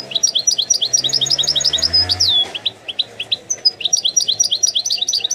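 European goldfinch singing in its cage: two bursts of rapid, high twittering notes, each closing with a longer falling note.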